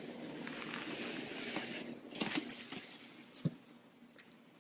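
A dog's paw and claws scraping and tapping on a hardwood floor as it reaches into the gap under a door: a scraping hiss for about two seconds, then scattered clicks.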